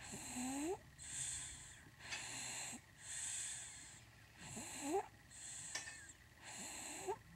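A sleeping baby snoring, with quick, regular breaths about once a second. A squeaky, rising note sounds at the end of a few of the breaths, three times.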